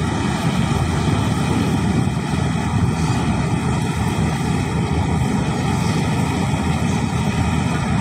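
Marksan combine harvester running steadily as it harvests rice, a continuous engine and machinery drone with no change in pace.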